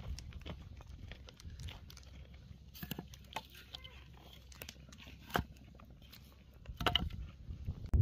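Dry wood and twigs being handled on dusty ground: scattered small cracks and crunches, with a sharper knock about five seconds in and a short cluster of crackles near the end.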